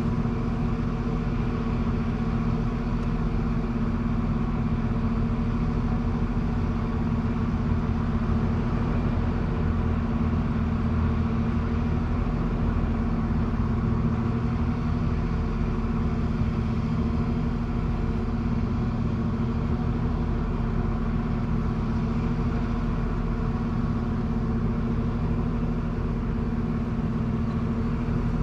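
Queensland Rail Diesel Tilt Train's diesel power car idling at a standstill: a steady, unchanging engine hum.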